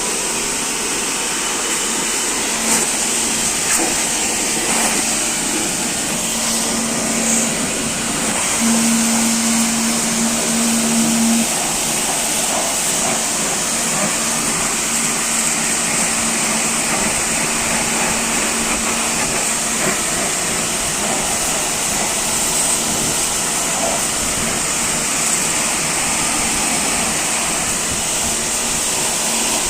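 A motor-driven machine running steadily, with a strong hiss over a steady hum; the hum grows louder for a few seconds about nine seconds in.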